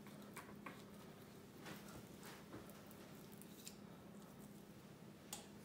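Faint, scattered clicks and squishes of a kitchen knife cutting raw venison into cubes on a plastic cutting board, over a faint steady hum. The sharpest click comes near the end.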